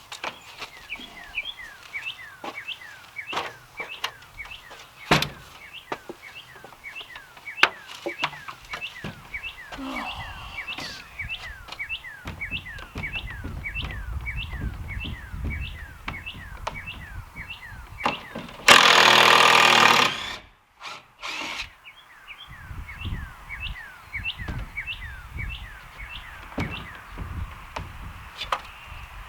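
Knocks and clunks of work on timber, with a low rumble at times and one loud burst of a power tool about two-thirds of the way through. Behind them runs a steady series of short high falling chirps, about three a second.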